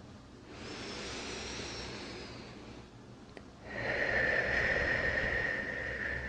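A person breathing slowly and deeply, close to the microphone: a softer breath, a short pause, then a longer, louder breath carrying a faint steady whistle.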